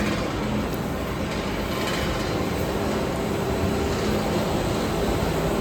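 Continuous rotary carbonization furnace plant running on test: a steady mechanical rumble and hiss with a faint low hum.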